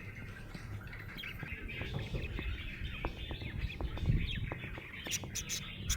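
Budgerigars chirping and chattering in quick short calls. Near the end there is a fast run of light clicks.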